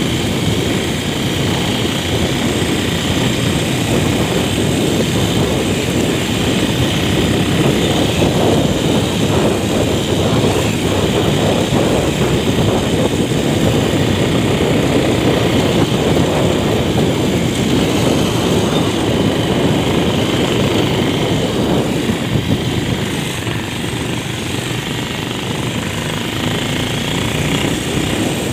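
Motorcycle running steadily on the move, a loud continuous rumble with no pauses.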